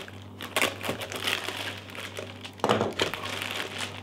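Plastic wrapping crinkling in irregular bursts as the bagged wing panels are handled and lifted in their box, with louder crackles about half a second in and again near three seconds in.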